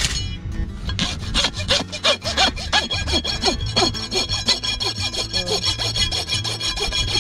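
Farrier's rasp filing a horse's hoof in quick back-and-forth strokes, about five a second, over background music.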